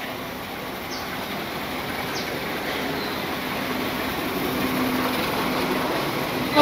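Train running through a station, a steady rumble growing louder, with a few short high squeaks.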